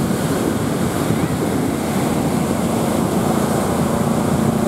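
Wind buffeting the microphone over the wash of sea waves, with a motorboat's outboard engine running steadily at a distance; its hum grows stronger near the end.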